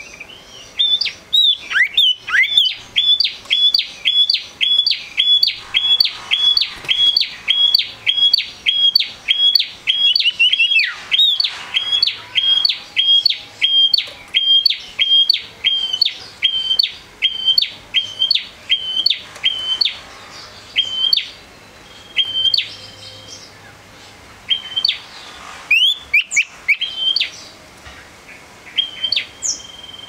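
Male common iora singing: a long, regular run of short, clear high whistled notes, about two a second, each with a quick upward flick. After about twenty seconds the notes become sparse and irregular.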